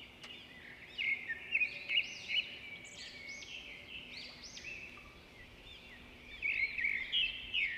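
Small birds chirping: many short, arched high-pitched calls overlapping throughout, a little louder near the start and again near the end.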